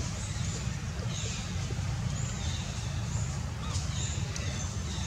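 Outdoor ambience: a steady low rumble with birds giving short, high chirps and whistles above it now and then.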